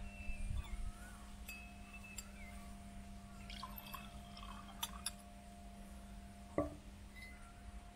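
Red wine poured from a glass swing-top bottle into a wine glass, a faint liquid pour with light clinks of glass. A single sharp knock comes about six and a half seconds in.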